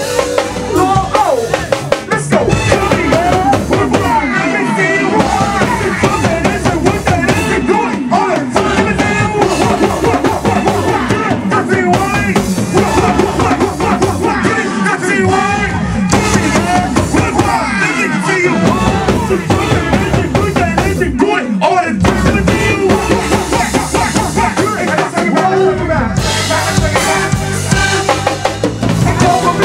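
Live go-go band playing loudly, driven by a drum-kit groove of bass drum and snare with rimshots, the rest of the band layered over it.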